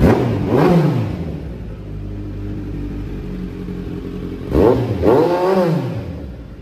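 Superbike engine idling through an aftermarket exhaust with its dB killer fitted. The throttle is blipped twice in quick succession at the start and twice again about four and a half seconds in, and each time the revs rise and fall back to idle.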